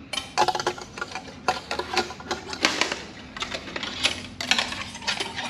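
A thin metal wire being fed and worked through a gap in the plastic body panels of a Can-Am Spyder: a quick, irregular run of clicks and scrapes as the wire rubs and taps against the plastic.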